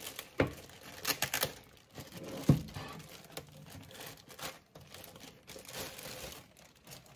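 A plastic bag crinkling and tearing as it is pulled open and worked off a boxed electrical unit, with a single knock about two and a half seconds in.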